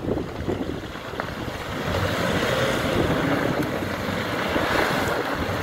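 4x4 SUV engine running hard under load as the vehicle reverses through deep mud, growing louder from about two seconds in, with wind buffeting the microphone.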